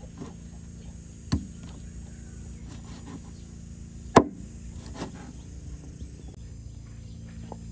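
Two sharp chopping strikes, a blade hitting a wooden board, about three seconds apart (the second louder), with a few lighter taps between, over a steady drone of insects.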